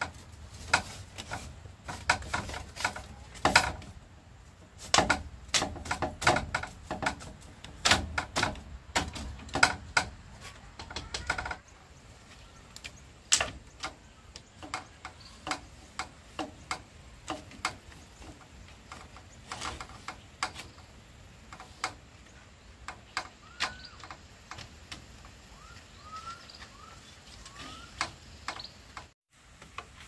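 Irregular knocks and taps, dense for the first ten seconds or so and sparser after that, with a few short bird chirps near the end.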